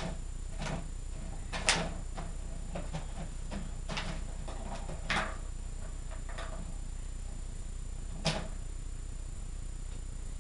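Clear plastic bottles on a wooden treat-dispenser frame knocking and clattering as a dog noses them round to shake out treats: scattered sharp taps, with two louder knocks, one about two seconds in and one near the end.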